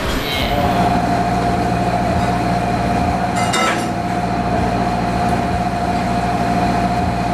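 Commercial gas wok stove running with a steady drone and a thin, steady whine, with a short metallic clink about three and a half seconds in.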